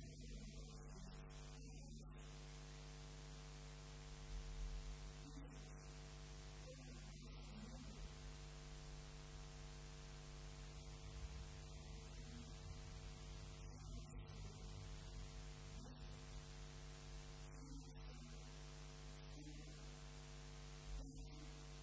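Steady electrical mains hum with a stack of overtones, with a faint voice coming and going over it.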